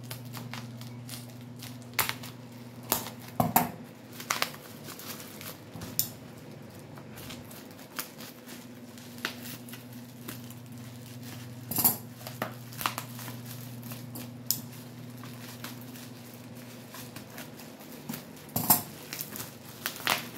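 Kitchen scissors snipping through bubble wrap, with the plastic crinkling as it is cut and pulled off a small cardboard box: scattered sharp snips, clicks and rustles. A steady low hum runs underneath.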